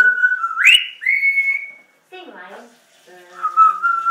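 African grey parrot whistling loud, clear held notes: one note slides sharply upward about a second in and holds, then comes a short burst of talking-like chatter, then another held whistle near the end.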